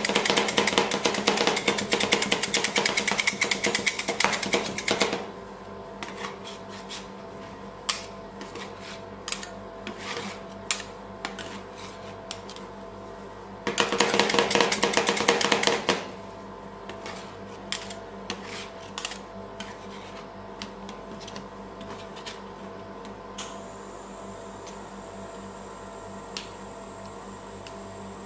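Two metal spatulas chopping fast on a steel ice cream roll cold plate, mashing avocado into the freezing cream: a quick run of clicks for the first five seconds and again about halfway through, with slower single taps and scrapes in between and near the end. A steady hum sits underneath.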